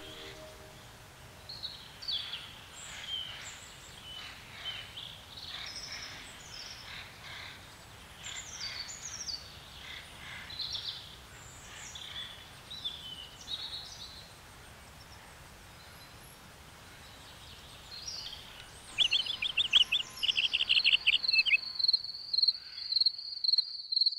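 Birds singing, many short whistled phrases and chirps. About 19 seconds in, a loud, fast pulsed insect trill starts, then gives way to a steady, evenly pulsed high chirping.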